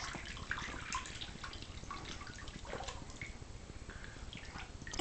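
Faint, scattered small splashes and drips of bathwater as a baby moves her hands and a rubber duck in a foamy inflatable baby tub.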